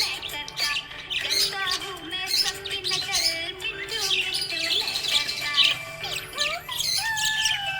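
Budgies chirping and squawking in rapid, busy bursts over background music.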